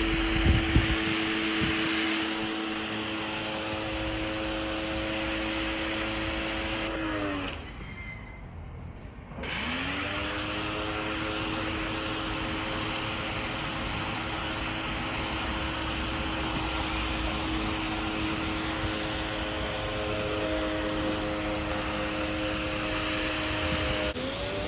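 Gerni 3300 electric pressure washer running, its 1500-watt motor and pump humming steadily under the hiss of the water jet. About seven seconds in, the motor winds down and stops for about two seconds, then starts again, its pitch rising as it comes back up to speed. It dips briefly near the end.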